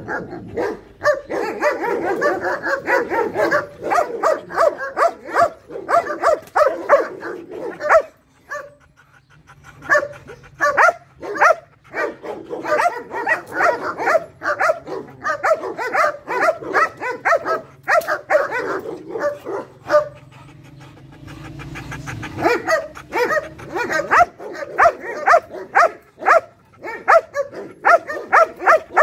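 German shepherd barking rapidly and repeatedly, about three or four barks a second, in long bouts broken by short pauses about 8 and 20 seconds in.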